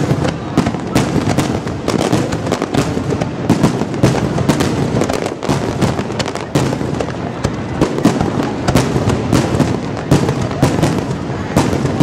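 Aerial fireworks display: rapid, overlapping shell bursts, several sharp bangs a second, with no let-up between them.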